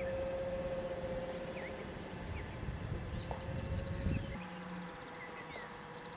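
The twin brushless electric motors and propellers of a Multiplex Twinstar II RC airplane in flight, a steady whine that drifts slightly in pitch. Wind rumble on the microphone drops away about four seconds in, and birds chirp in the background.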